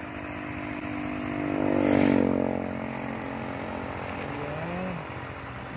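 A motor engine running steadily, swelling to its loudest about two seconds in and then easing back to a steady level.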